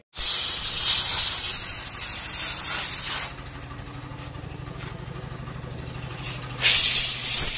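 Compressed-air spray gun hissing as it sprays primer: a long burst of about three seconds, a pause, then another burst starting near the end. A low, fast-pulsing hum runs underneath between the bursts.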